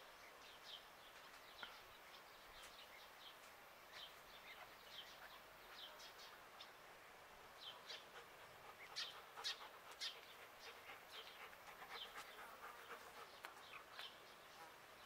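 Faint, scattered short chirps of small songbirds over an otherwise near-silent background.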